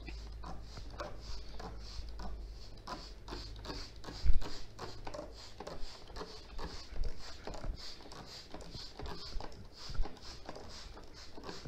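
Hand trigger spray bottle being squeezed over a pot of soil, a short hiss of mist with each pull, about two a second, watering freshly sown basil seeds until the soil is soaked. A thump about four seconds in.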